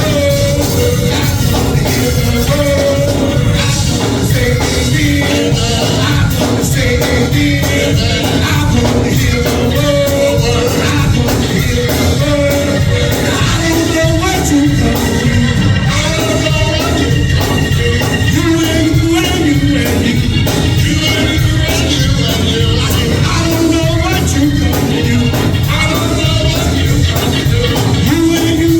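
Gospel music from a church band with a steady drum beat and strong bass, with some singing.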